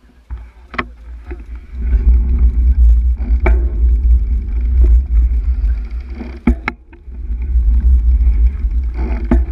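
Heavy low rumble and handling noise through a bicycle-mounted camera as the bike is rolled slowly along a rough path, with a few sharp knocks from the mount. The rumble eases off for about a second past the middle, then comes back.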